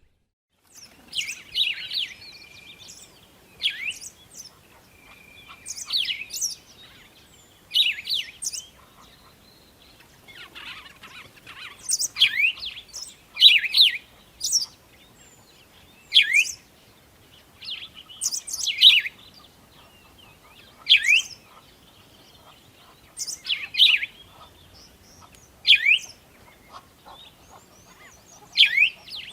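A bird chirping: short, sharp, high calls repeated about every two seconds, some coming in quick pairs.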